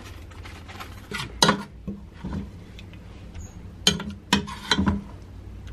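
A metal spoon knocking and scraping against a stainless steel pot while scooping corn masa: one sharp clink about a second and a half in, then three more in quick succession near the end.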